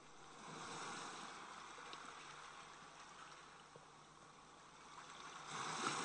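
Faint, steady rushing noise of sea water around a barge and workboat, with no clear tones, swelling slightly near the end.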